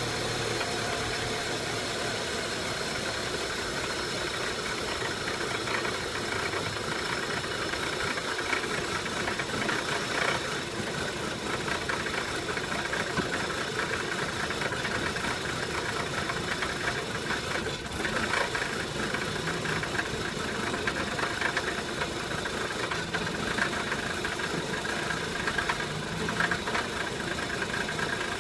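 2003 VW Passat 1.8T turbocharged four-cylinder engine idling roughly, with small uneven surges in loudness throughout.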